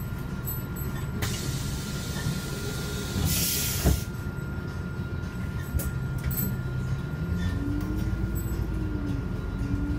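Inside a Solaris Urbino 15 city bus: a long air hiss that ends in a sharp clunk about four seconds in, as the pneumatic doors close. Then the bus's drive note rises as it pulls away, over a steady low rumble and a thin steady whine.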